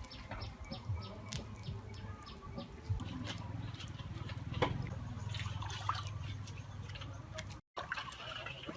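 Scattered light clicks and taps over a low steady rumble, with a few faint bird chirps near the end.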